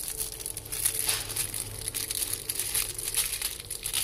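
Clear plastic packaging bags crinkling and rustling as they are handled, in quick irregular crackles.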